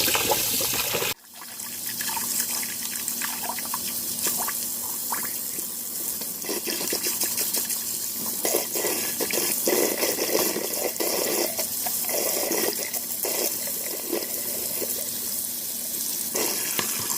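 Water running from a tap into a sink over a dishwasher part, with brush scrubbing and handling noises through the stream. The sound cuts out briefly about a second in, then the running water goes on.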